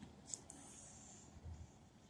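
Near silence: faint room tone with a couple of soft clicks and a short hiss in the first half second, and a soft low thump near the middle.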